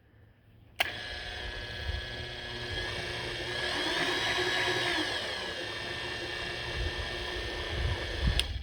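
Lagun FTV-2 milling machine's y-axis power feed motor running the table, a steady whine that rises in pitch for a moment midway and then settles back. It switches on with a click about a second in and off with a click near the end.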